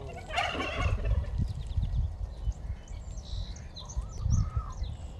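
Domestic white geese calling: one loud honk about half a second in, then softer short calls and thin high chirps around three to four and a half seconds in, over a steady low rumble.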